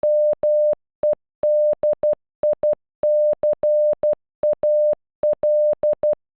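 Morse code sent as a steady electronic tone of about 600 Hz, spelling MEDICAL in long and short beeps: -- . -.. .. -.-. .- .-.. . Each beep starts and stops with a faint click, and the pattern ends just before the close.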